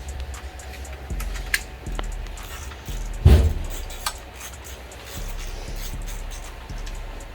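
Scattered light metallic clicks and clinks of tools and parts being handled while working on a motorcycle engine, with one heavy thump a little over three seconds in, over a low steady hum.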